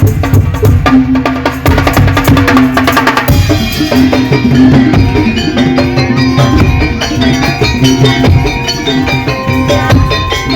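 Background music with a steady drum beat; about three seconds in it shifts to a more melodic part with sustained pitched notes over the beat.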